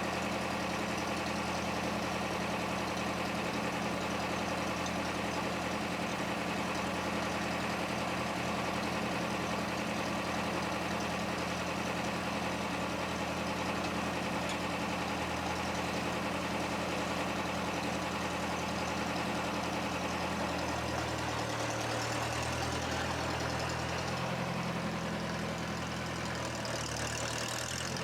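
Forklift engine idling steadily; about twenty seconds in its note shifts and turns uneven as the engine speed changes.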